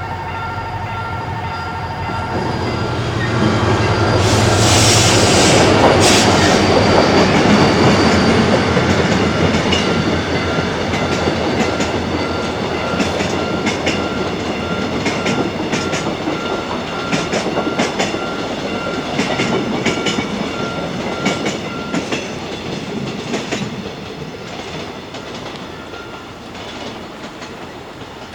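A train passing over a railway level crossing: it is loudest about five seconds in, then its wheels clack over the rail joints as it goes by and fades away. A level-crossing warning signal dings repeatedly the whole time and stops about three-quarters of the way through.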